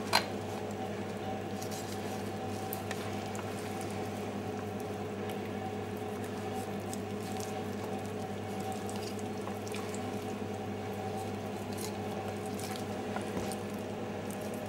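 Steady background hum made of several unchanging tones, with faint scattered clicks and soft wet sounds of a knife working through a raw turkey leg as it is deboned.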